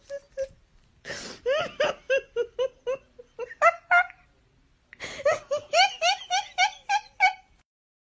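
A person giggling in high-pitched laughter, two bouts of quick, rising-and-falling 'ha-ha' syllables, each starting with a breathy gasp.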